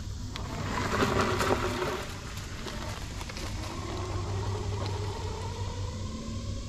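Ubco 2x2 electric motorcycle's front and rear hub motors (1,000 W each) giving a faint whine that glides in pitch as the bike rides away down a dirt trail, over a steady low rumble.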